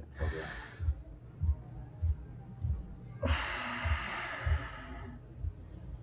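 A man breathing heavily while his shoulder is pressed: a short breath at the start, then about three seconds in a long, loud exhale lasting nearly two seconds. A faint low thump repeats about twice a second underneath.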